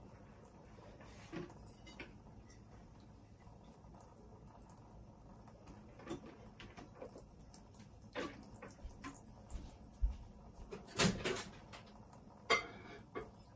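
Off-camera kitchen handling: scattered light clicks and knocks of dishes, utensils and cupboards, becoming busier past the middle, with a low thump and a few louder clatters near the end.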